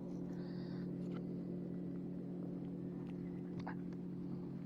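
Steady low electrical hum with a few faint clicks, and a brief soft hiss about half a second in.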